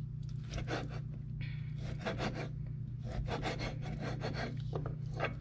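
Large kitchen knife sawing back and forth through pork spare ribs on a wooden cutting board, a rasping stroke about twice a second.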